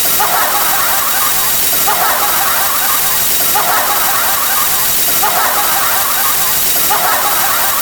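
A dense stack of looped sound effects: a loud steady hiss, with a higher wavering figure that repeats about every second and a half.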